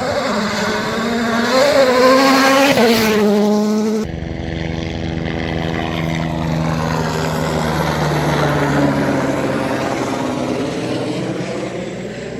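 Rally car engines at full speed. One car revs hard, its pitch climbing and dropping with gear changes. After a sudden cut about four seconds in, a second car's engine note holds, then fades as it goes away.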